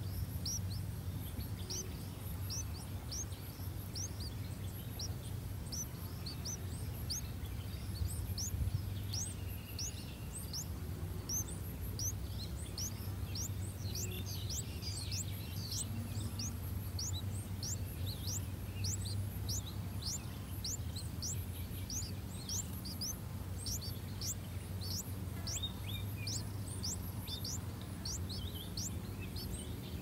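Streak-eared bulbul nestlings begging at the nest: thin, high rising chirps repeated rapidly, growing denser about ten seconds in. A steady low hum runs underneath.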